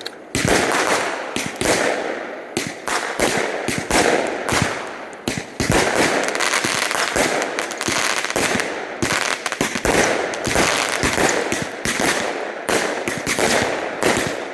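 Fireworks going off in rapid, continuous bangs and crackles, many reports overlapping with hardly a pause.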